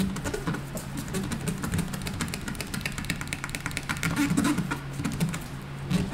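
Gloved fingers pressing wet paint protection film into a door handle cup, giving a rapid string of small squeaks and squelches as the slip solution is pushed out from under the film. A steady low hum runs underneath.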